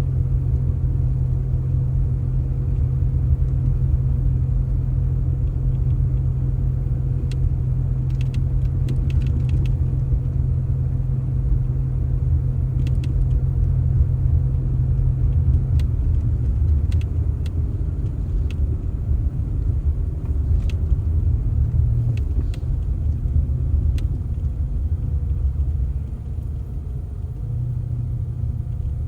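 Low, steady rumble of a running motor vehicle, changing a little about halfway through and easing off near the end, with scattered faint clicks.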